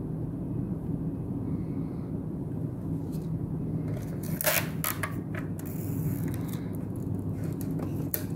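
Adhesive tape being pulled off the roll and torn, in a few short crackly rips about four to five seconds in and once more near the end, as strips are laid around a phone's glued back cover. A steady low background rumble runs throughout.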